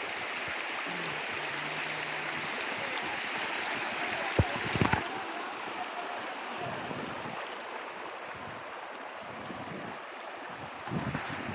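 River water flowing in a steady rushing stream. A few sharp knocks come about four and a half seconds in.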